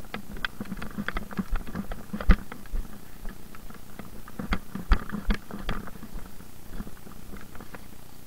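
Objects being handled and knocked about: irregular clicks and rattles, with two louder thumps.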